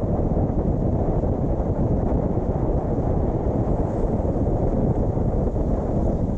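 Steady low rumble of a car driving, road and wind noise with wind buffeting the microphone.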